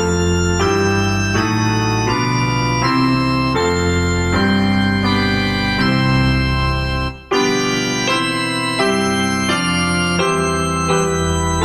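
Organ playing slow, held chords that change about every second or less. The sound cuts out briefly a little past halfway through.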